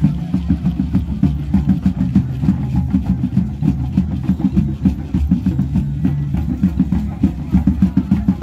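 Drum circle: many hand drums played together in a fast, dense, unbroken rhythm of deep drum strokes.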